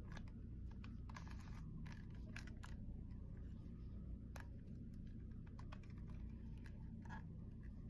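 Plastic Rubik's-type puzzle cube being twisted by hand: faint, irregular clicks and clacks as its layers turn.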